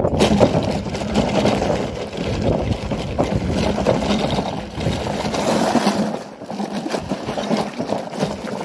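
Bicycle riding over a gravel path: the tyres crunching on loose stones and the loaded wire front basket rattling, with a steady low hum through the first half.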